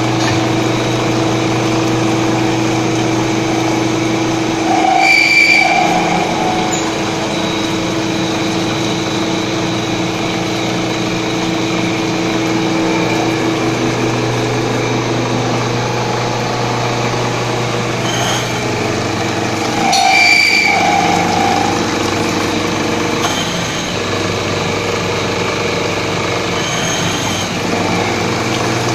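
Small CNC milling machine with a 3.7 kW AC spindle running a cut, coolant spraying onto the cutter: a steady machine hum with several steady tones, swelling louder briefly about five seconds in and again around twenty seconds.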